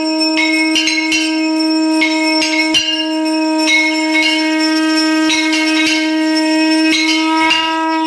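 Conch shell (shankh) blown in one long, unbroken note, with a hand bell struck irregularly over it: the conch and bell of a Hindu aarti.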